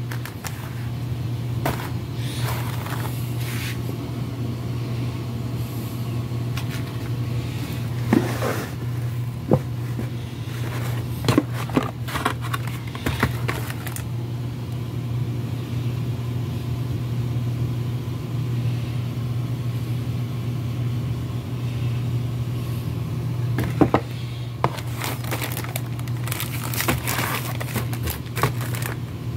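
Steady low machinery hum throughout, with intermittent crinkling, scraping and clicking as a cardboard gift box and its packaged contents are handled, busiest near the end when a biscuit packet is lifted out.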